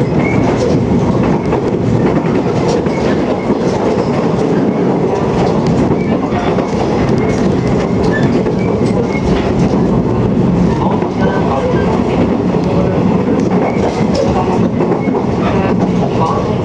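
Running noise of a JR 485 series electric express train heard from inside the passenger car: a steady rumble with irregular wheel clicks over the rails.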